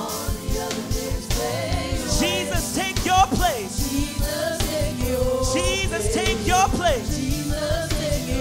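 Gospel praise-and-worship music: a band playing a steady beat under a singer's sliding vocal runs.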